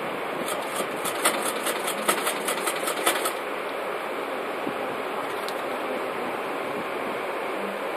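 Paperback manga pages being flipped by hand: a quick run of paper flicks, about five a second, from about half a second to three seconds in, over a steady background hiss.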